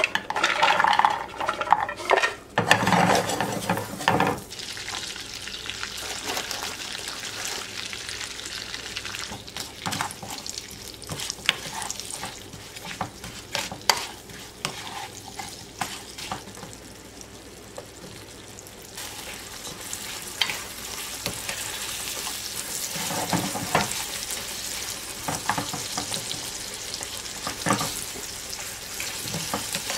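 Butter, brown sugar and walnuts sizzling and bubbling in a frying pan while a spatula stirs and scrapes through them, with frequent short clicks from the stirring. In the first few seconds there is louder clatter as a can is emptied into the pan.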